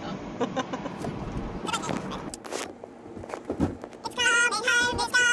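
Cellophane lollipop wrapper crinkling over a low car-engine rumble inside a car cabin. About four seconds in, high-pitched singing voices over music start and become the loudest sound.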